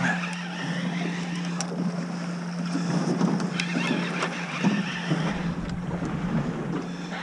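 Small fishing boat's outboard motor idling with a steady low hum, with wind on the microphone.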